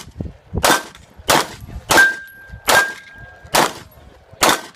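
Glock 17 9mm pistol firing a steady string of about six shots, roughly one every two-thirds of a second, at steel targets. Hits clang on the steel, and after a couple of the shots a plate rings on with a thin steady tone.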